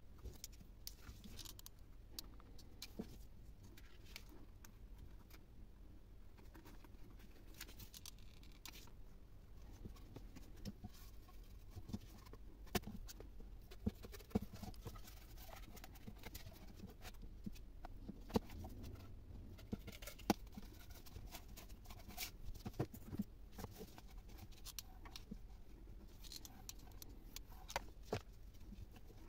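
Quiet crafting handling sounds on a tabletop: scattered clicks and taps, with scissors cutting through a cardboard tube and cardboard and fabric being moved about.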